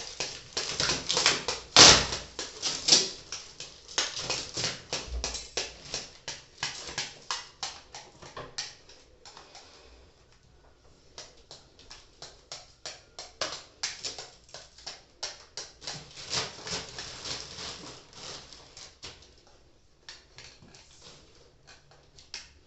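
Plastic packaging of a rolled memory-foam mattress crinkling and crackling as it is handled, in quick irregular clicks, easing off briefly about ten seconds in and fading near the end.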